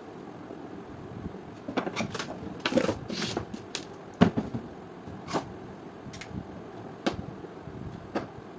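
Irregular clicks and knocks of hard objects being handled, the loudest about four seconds in, over a steady low hiss.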